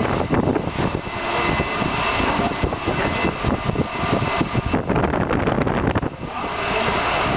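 Steady roar of industrial plant machinery with a few high steady tones, overlaid with rapid, irregular metallic clicks and knocks from hand tools working on the bolts at the gas turbine rotor's shaft end.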